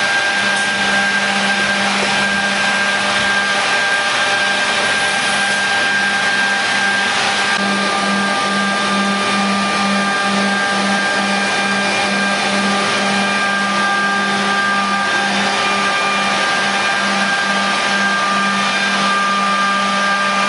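Griggio GB 5 8RA edge banding machine running with its motors and feed track switched on: a steady whirring machine noise with a constant low hum and a few high tones. About 8 s in, the low hum begins to pulse in an even rhythm, a little over two pulses a second.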